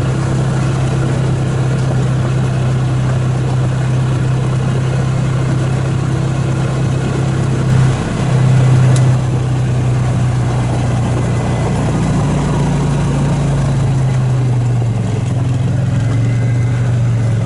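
Ranger side-by-side utility vehicle's engine running steadily as it drives along, with a brief surge in loudness about eight seconds in.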